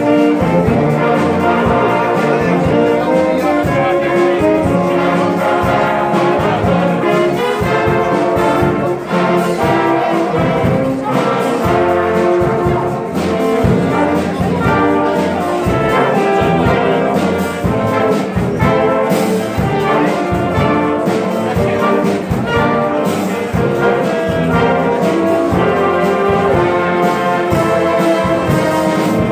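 Wind band playing a piece live, with trumpets and trombones to the fore over a steady beat.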